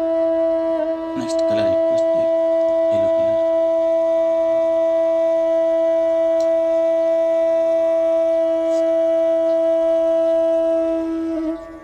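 Instrumental background music: one long note held steadily on a wind instrument over a faint drone, with a few soft low strokes about a second in, the note fading out near the end.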